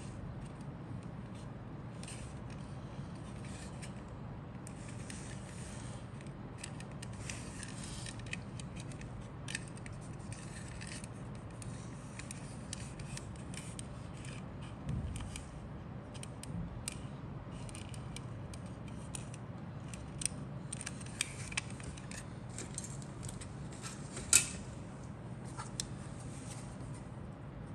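Hands handling hard plastic model-kit parts: light rubbing, scraping and scattered clicks of plastic against plastic and fingers, with one sharper click near the end, over a steady low hum.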